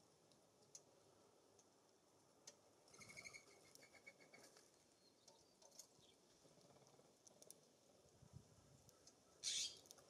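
Songbirds at a feeder, faint: a quick run of high chip notes about three seconds in, light scattered ticks, and a short scratchy sound near the end that is the loudest thing.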